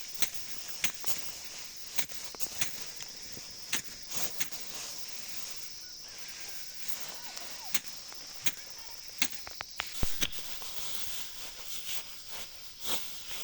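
Rice stalks being cut and handled by hand during harvest: irregular crisp snaps and rustles, one or two a second, over a steady high hiss.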